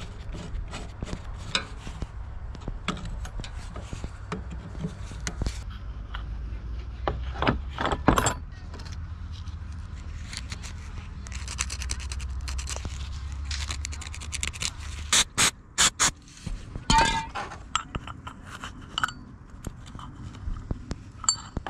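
Hand tools scraping and clinking on metal in irregular strokes, with a few sharp knocks about two-thirds through. A steady low hum runs underneath and stops at about the same point.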